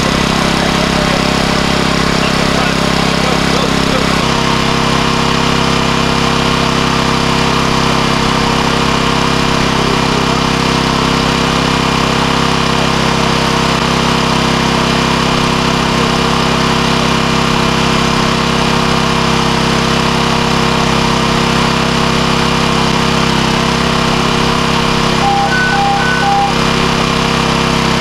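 Small petrol engine of a hydraulic rescue-tool power unit running steadily at a constant speed, its tone shifting slightly about four seconds in. A few short beeps near the end.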